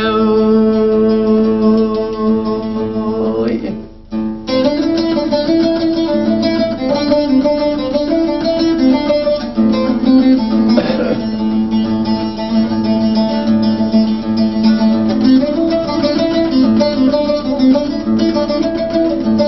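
Instrumental break in a Kurdish hayran song: a plucked string instrument plays a busy melody over a steady drone. A held note fades out about four seconds in, with a brief break before the plucking starts.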